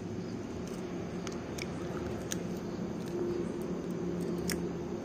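A few faint clicks of eggshell being handled over a steel mixing bowl as a cracked egg is emptied into it, over a steady low background hum.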